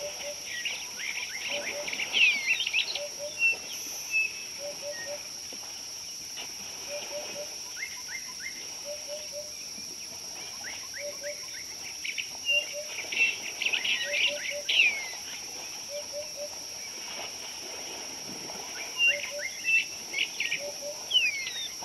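Birds calling at a savanna watering hole: a low cooing phrase of two or three notes repeats about every second or two, while bursts of high chirps and quick down-slurred notes come and go, loudest a couple of seconds in, around the middle and near the end. A steady high-pitched tone runs underneath.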